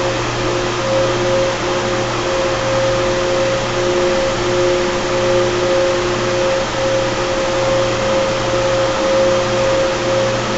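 Carrier 30HX water-cooled chiller's screw compressors running under load: a steady machine drone with a low hum and two held mid-pitched whines that swell and fade slightly.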